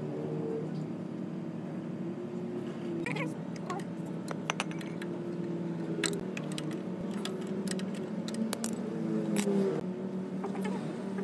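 Metal clicks and clinks of a spanner working rusted bolts on a tiller engine's mounting frame, with a few sharper knocks, the loudest near the end, over a steady low drone.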